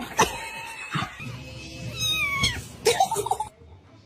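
A cat meowing, with a drawn-out call that falls in pitch about two seconds in; a couple of sharp knocks sound near the start and about three seconds in.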